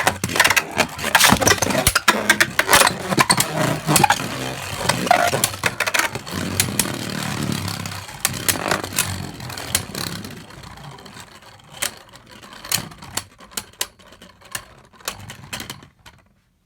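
Two Beyblade Burst tops, Bellfire and Achilles, spinning and clashing in a plastic battle stadium: rapid rattling clicks and knocks for about ten seconds, then fewer, weaker hits toward the end.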